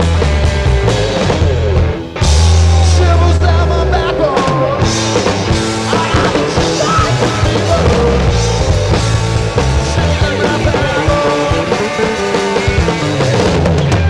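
A live rock band playing with electric guitars and a drum kit. The band stops for an instant about two seconds in, then comes back in.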